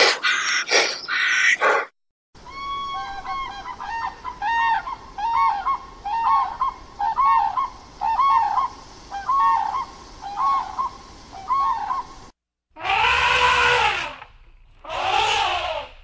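Common crane calling: a run of short, arched bugling calls, roughly one and a half a second, for about ten seconds. Near the end the calls stop and two loud, harsh animal calls follow.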